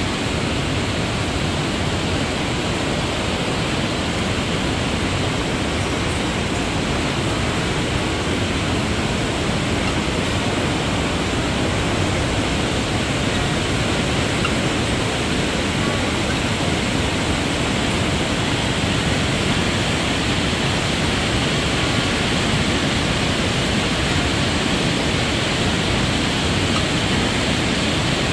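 Steady, loud rush of a waterfall and whitewater creek tumbling over rocks.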